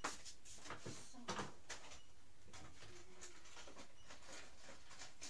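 A few light clicks and knocks from small objects being handled, the clearest at the very start and about a second and a half in, over a steady low hum.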